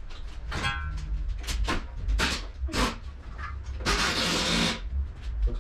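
Fast-forwarded workshop sound of engine assembly on a stand: quick tool clanks and knocks, short high-pitched chirping fragments, and a hiss lasting under a second about four seconds in.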